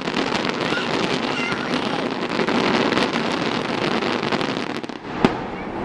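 Fireworks finale: a dense run of crackling bursts with a sharp bang near the end.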